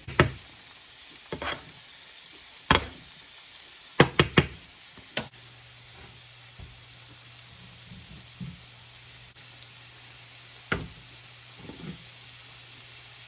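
Sharp kitchen knocks and clatters, among them a chef's knife striking a wooden cutting board as an avocado is cut in half, with a quick run of three knocks about four seconds in. Under them runs a faint steady sizzle of diced potatoes frying in the pan.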